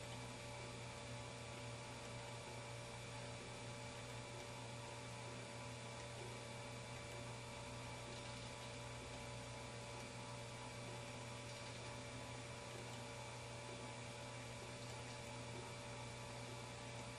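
Steady low electrical hum over a faint even hiss, unchanging throughout, with no other events.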